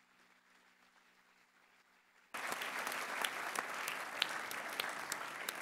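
Near silence for about two seconds, then audience applause starts suddenly and continues: many hands clapping.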